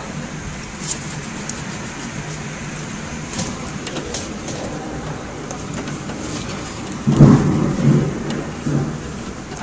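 Steady rain and wind of a downburst thunderstorm, with scattered sharp ticks of drops striking. A loud low rumble of thunder breaks in about seven seconds in and fades over a couple of seconds.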